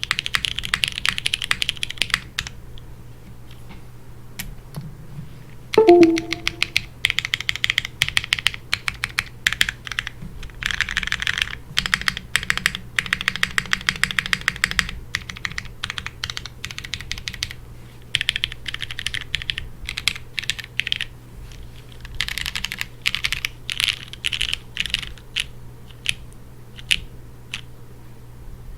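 Typing in runs with short pauses on a Geon F1-8X V2 mechanical keyboard with Cherry MX Brown Hyperglide switches, an aluminium plate, gasket mounting and GMK keycaps. About six seconds in, a brief loud falling tone cuts in over the keys, and a low steady hum sits underneath.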